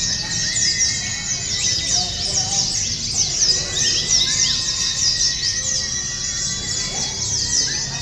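White-eyes (pleci) singing: a dense, unbroken twittering of fast, high chirps from several birds at once, over a low background rumble.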